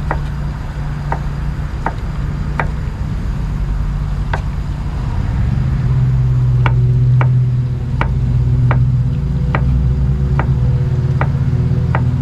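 Kitchen knife slicing young bamboo shoot on a cutting board: slow, separate chops about once a second, over a steady low hum that grows louder about halfway through.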